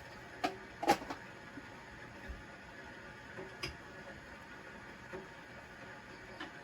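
A few light clicks and knocks, the loudest about a second in, over a low steady hiss.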